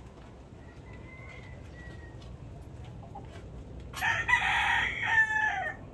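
A rooster crowing once, a loud call nearly two seconds long starting about four seconds in and ending in a falling tail.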